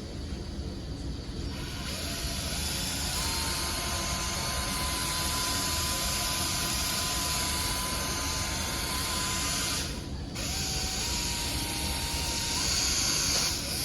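Milwaukee M12 cordless buffer running with a hiss of the pad on the headlight lens, its motor whine stepping up and down in pitch as the load changes; it cuts out briefly about ten seconds in and starts again.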